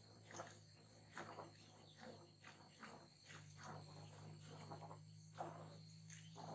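Milk squirting from a cow's teats into a plastic bucket during hand milking: faint soft swishes about twice a second, over a low steady hum.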